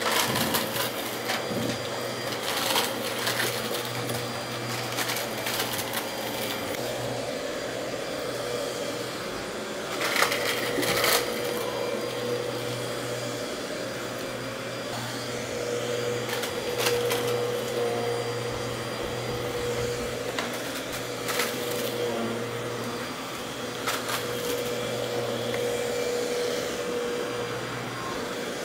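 Dirt Devil vacuum cleaner running over a rug, its motor humming steadily. Scattered crunchy crackles and clicks come through as the brush roll picks up small debris.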